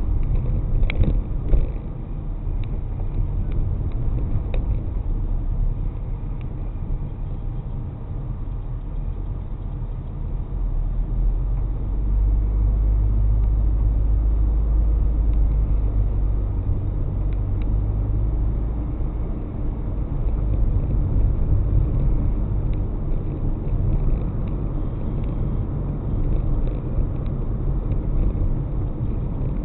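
Car driving, heard from inside the vehicle: a steady low rumble of road and engine noise, with a couple of short knocks in the first two seconds and a louder stretch in the middle.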